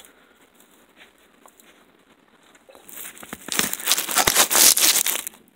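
Dry straw bedding rustling and crackling close to the microphone. It is faint at first, then a loud burst of dense crackling starts about three and a half seconds in and stops just before the end.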